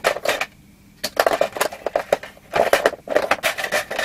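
Tools and small metal and plastic parts clattering in a plastic storage box as someone rummages through it by hand, in several bursts of rattling with short pauses between.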